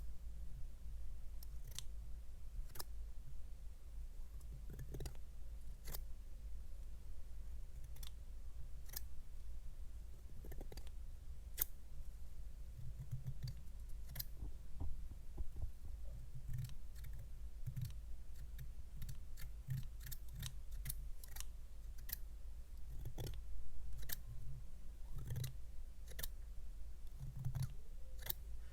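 Irregular soft clicks and taps, about one or two a second, over a steady low hum.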